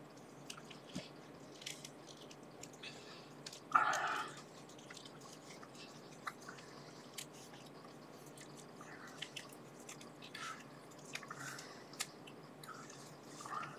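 Black tape being pulled off its reel and wound around a cable assembly: small scattered crackles and clicks from the unrolling tape and handling, with one longer, louder pull of tape about four seconds in.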